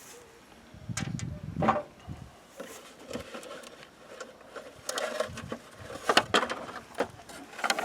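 Intermittent clanks, knocks and rattles of the cover being worked off a winch's solenoid pack, with a low rumbling handling noise about a second in.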